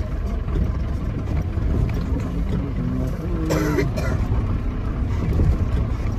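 Steady low rumble of a vehicle driving, with a short, sharp sound about three and a half seconds in.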